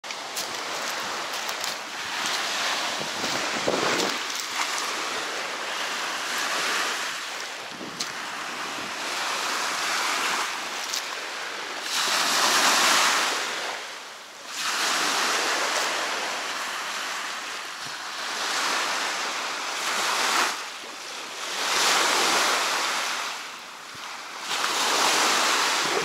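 Small waves breaking and washing up a pebble shore, a hiss that swells and fades every few seconds, loudest in the second half.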